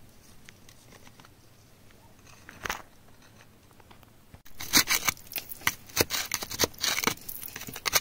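A metal prying tool scraping and digging through wet, gritty soil around a stone. The first half holds only faint handling noise and a single click. From about halfway there is a rapid, crunchy run of scrapes and clicks.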